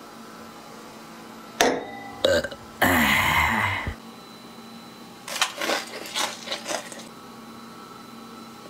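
A loud, rough belch in three pushes about two seconds in, its pitch falling. A few seconds later comes chewing, with short crunchy crackles from crisp food.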